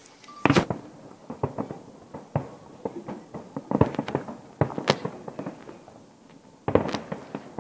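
Fireworks exploding in an irregular series of sharp bangs and cracks, some coming singly and some in quick clusters, with the loudest reports about half a second in, around four to five seconds in, and near the end.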